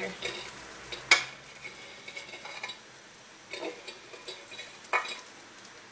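Sharp clinks and soft taps of a chargrill pan and slices of chargrilled butternut squash against a china plate as the squash is laid out by hand. There is one loud clink about a second in, another just before the end, and a few fainter taps between.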